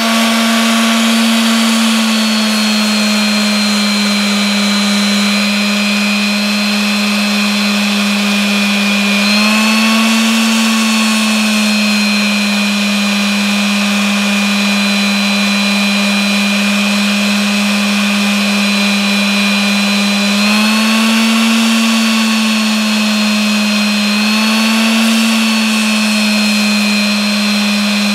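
Ryobi electric detail sander running with a steady motor hum and hiss while its pad sands a hard resin egg. The motor's pitch briefly rises three times, about ten seconds in and again near twenty-one and twenty-five seconds.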